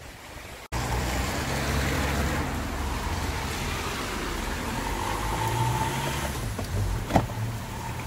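A motor vehicle's engine running steadily, starting abruptly about a second in, with a sharp click near the end.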